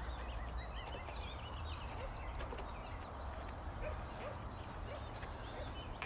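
Several small birds chirping and singing in quick rising and falling notes, with scattered knocks of footsteps on the boards of a wooden footbridge.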